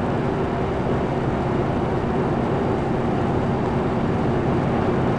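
Steady engine drone, an unchanging hum and rush of machinery noise with no breaks.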